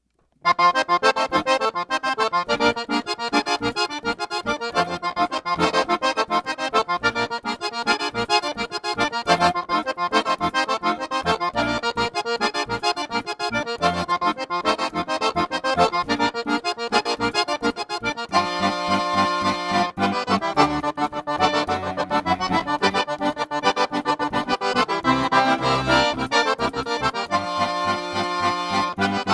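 Accordion playing a lively vaneira, the southern Brazilian gaúcho dance rhythm, starting about half a second in. About two-thirds of the way through it moves into long, held chords.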